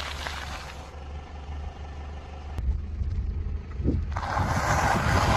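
A car tyre rolling over packaged wafer bars with fine crackling crunches, then, after a cut, crushing dry instant noodle blocks with a loud, dense crackling crunch in the last second or so. A car engine idles low underneath.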